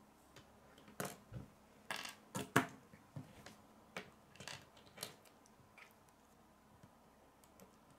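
Small plastic K'nex rods and connectors clicking and knocking as they are handled and snapped together: a scattered string of sharp clicks, busiest in the first half and sparse after.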